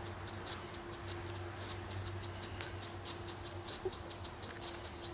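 Lesli Blitzturm strobe firework strobing: a quick, irregular series of sharp crackling pops, about five or six a second.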